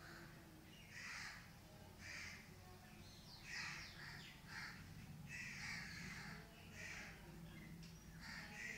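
Crows cawing, faint, in short harsh calls about once a second.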